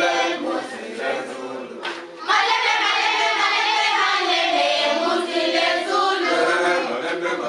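A choir of many voices singing together; the singing breaks off briefly about two seconds in, then comes back louder.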